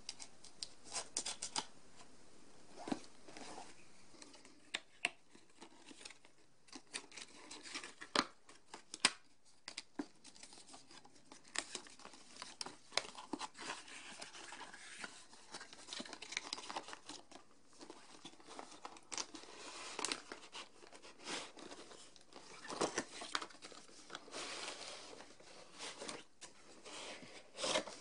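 A paperboard retail box being cut open and unpacked: a small knife slitting the box's sealed tab, then the cardboard flaps and inner carton being pulled open and handled, with irregular rustles, scrapes, tearing and sharp clicks.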